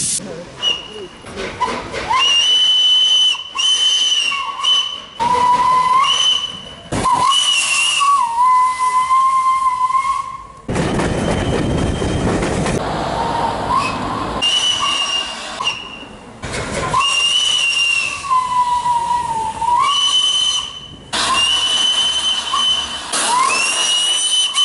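Steam whistle of the LNER A3 locomotive 4472 Flying Scotsman, sounded in a dozen or so blasts, some short and some held a second or two, several sagging in pitch as they end. Midway there are a few seconds of loud steam hiss with no whistle.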